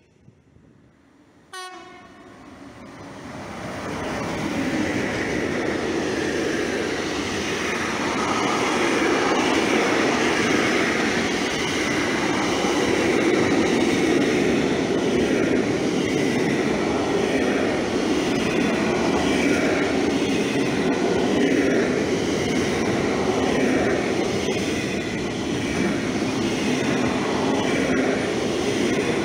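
Intermodal freight train of pocket wagons carrying lorry semi-trailers rolling past close by: a steady, dense rumble and clatter of wagon wheels on rail. It starts just after a short quiet moment, builds over the first few seconds and then holds loud.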